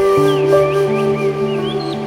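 Background music of held, sustained notes over a slow bass line, with short bird-like chirps repeating several times a second above it.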